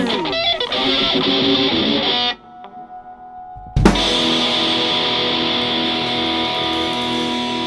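Distorted electric guitar playing punk rock: a held chord stops abruptly about two seconds in, and after a short gap a final chord is struck and left to ring out.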